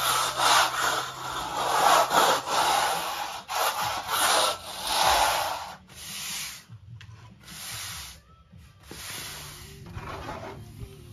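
A hand float rubbing and scraping over cement render on a wall in repeated strokes. The strokes are loud for the first half and become lighter and more broken after about six seconds.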